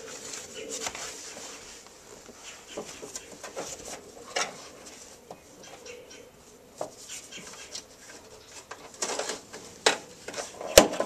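A car's rear seat cushion being handled and pressed into place: fabric and plastic rustling with scattered knocks and clicks, and a sharp snap a little before the end.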